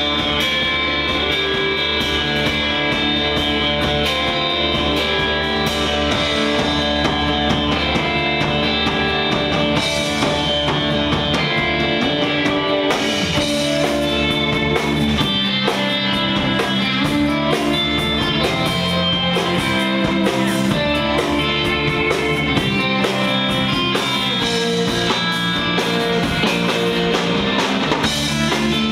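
A surf rock band playing an instrumental number live and loud: electric guitar lines over bass and a drum kit, recorded from the audience in a small club.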